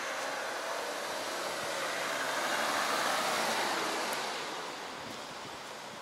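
A car passing by: tyre and road noise swells to a peak about halfway through, then fades away.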